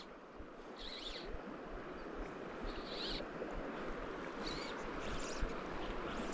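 Shallow river running over stones: a steady rush of water, with a few short high chirps about one, three and nearly five seconds in.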